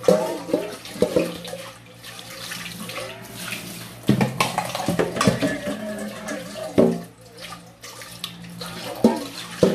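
Tap water running into a stainless steel sink while pots are rinsed under it, with several sharp clanks as the metal pots and lids knock against the sink and each other.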